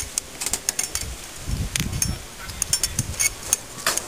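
Scattered light clicks and taps of steel reinforcing bars being shifted against the lattice girders of precast filigree floor slabs, with a brief low rumble about one and a half seconds in.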